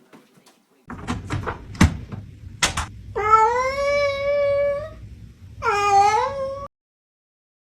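A few sharp knocks, then a domestic cat gives two long, drawn-out meows, the first rising and held for nearly two seconds, the second shorter; the sound cuts off abruptly.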